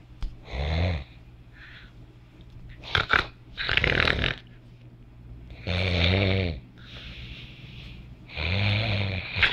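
A man snoring, with long snores every two to three seconds. Some carry a low droning buzz, others are a harsh hiss, with fainter breaths between.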